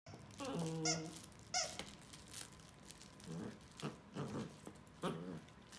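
Squeaker in a plush squid dog toy squeaking a few times in the first two seconds as two corgis tug and chew on it, the last squeak high and rising.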